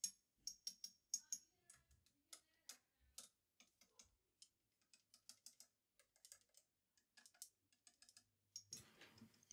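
A wooden stick tapping the glass 6L6 power tubes of a Fender Blues Deluxe tube amp: a tap test for noisy or microphonic tubes, heard as a run of irregular, sharp light clicks. A faint hum and hiss come in near the end.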